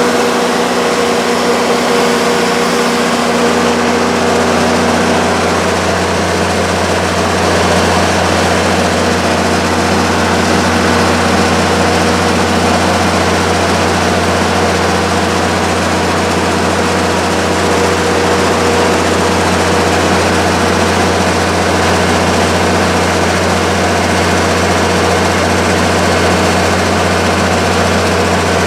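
The six-cylinder turbo-diesel Cummins engine of an Onan 80 kW diesel generator set running at a steady, constant speed. Its deep hum grows stronger about three seconds in and stays even after that.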